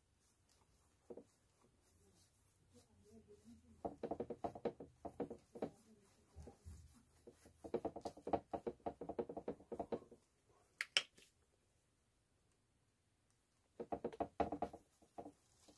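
Paintbrush scrubbing wet acrylic paint and water back and forth across a stretched canvas, in three bursts of quick strokes, with a single sharp click about two-thirds of the way through.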